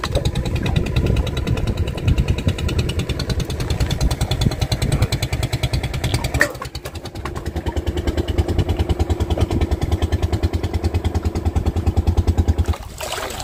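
Boat engine running steadily with a fast, even pulse. It drops in level about six and a half seconds in, picks up again a second later, and cuts off shortly before the end.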